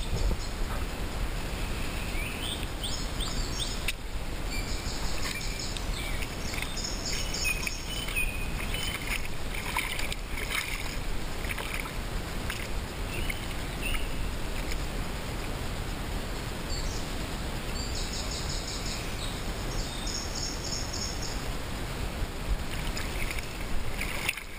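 Steady rush of a shallow, stony river, with songbirds singing above it: short chirps and several fast trilled phrases, the clearest trills in the second half.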